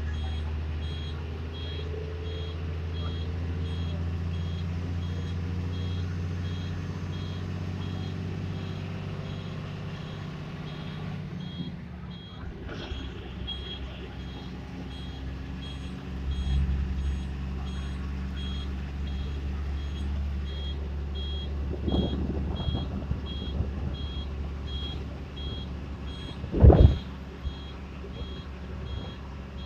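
Bus engine droning steadily as the bus drives along, with a high electronic beeper repeating at an even pace over it, pausing briefly near the middle. One loud thump sounds near the end.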